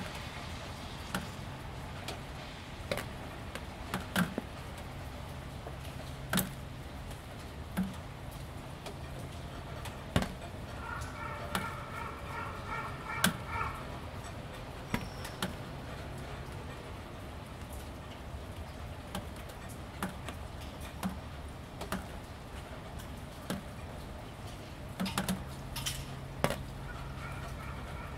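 Light rain dripping onto wet ribbed plastic roofing panels, scattered irregular taps over a steady low hum. About a third of the way in, and again near the end, a brief pitched call with a few repeated notes sounds over the drips.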